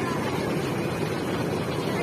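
Steady busy-street noise: a low rumble of traffic mixed with the murmur of a crowd.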